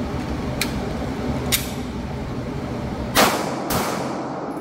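Two sharp metallic clicks as a magazine is inserted and the pistol readied, then two shots from a Bul-armory Axe C 9mm pistol about half a second apart, the first the loudest, ringing in an indoor range over the steady rush of its ventilation.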